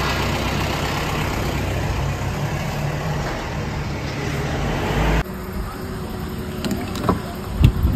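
A motor vehicle engine running steadily with a low hum, which stops abruptly about five seconds in, leaving a quieter background with a few faint clicks.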